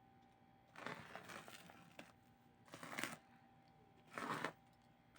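Packaging being handled: three bursts of crinkling and rustling, the first about a second long starting near the first second, then two shorter ones about three and four seconds in.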